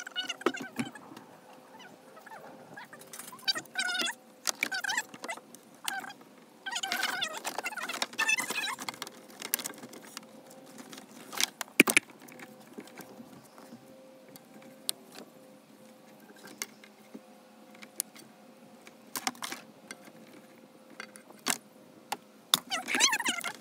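Handling noise as a transducer cable is pulled and fed through a boat's deck compartments: rubbing and scraping with scattered sharp knocks and clicks, one louder knock about halfway through.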